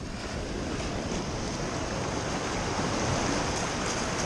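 Shallow surf washing in over wet sand, a steady rushing wash that grows slightly louder.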